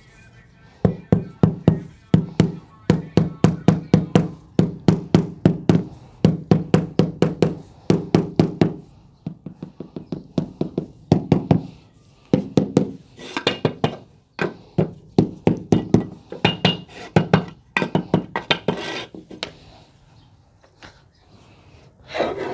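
A mallet tapping a marble floor tile down into its mortar bed in quick runs of light knocks, several a second, to bring it level. Each knock rings briefly, and the knocks grow sharper and brighter in the second half. A short scraping sound comes near the end.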